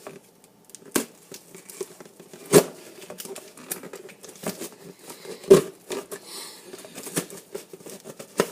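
Hands struggling to open a taped shipping package: packaging crinkling and tape tearing, with a few sharp snaps, the loudest about a second, two and a half seconds and five and a half seconds in.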